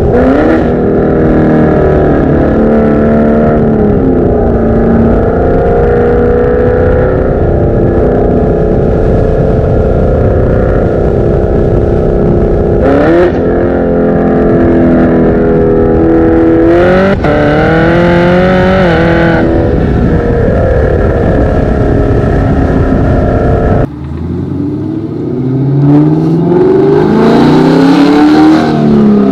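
Supercharged 6.2-litre LT4 V8 of a Chevrolet Camaro ZL1 with Kooks long-tube headers and an AWE exhaust, under throttle: revs climbing and falling several times as it accelerates through the gears. Near the end the sound is heard from inside the cabin, quieter at first, then revving up again.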